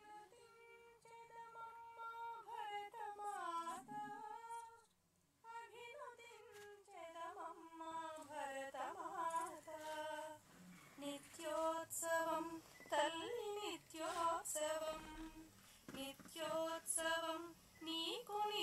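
Recorded prayer song played back: a woman singing a slow, melodic devotional line, phrase after phrase, with a short break about five seconds in before the singing resumes.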